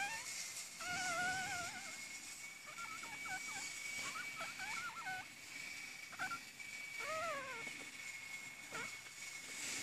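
Newborn Chihuahua puppies whimpering: a series of short, high, wavering cries, one sliding down in pitch about seven seconds in. A faint steady high-pitched tone runs underneath.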